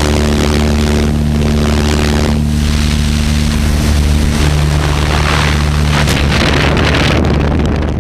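Propeller aircraft engine droning steadily, heard through the open jump door with a loud rush of wind on the microphone. Near the end the steady engine tones fade and the sound drops slightly as the jumpers leave the plane.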